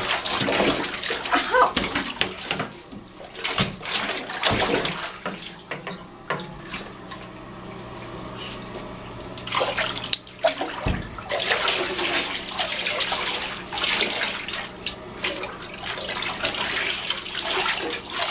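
Water running and splashing in a bathtub, quieter for several seconds in the middle.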